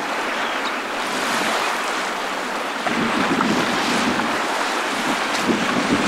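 Small sea waves breaking and washing ashore, with wind buffeting the microphone; a little louder from about three seconds in.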